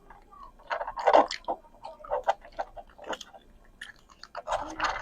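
Close-miked eating: a person chewing and biting food, an irregular run of wet clicks and short crunchy bursts, loudest about a second in and again near the end.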